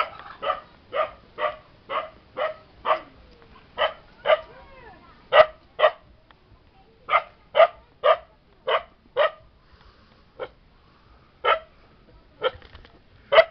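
A dog barking over and over, short sharp barks at about two a second in runs, with a few longer gaps and the barks coming more sparsely near the end.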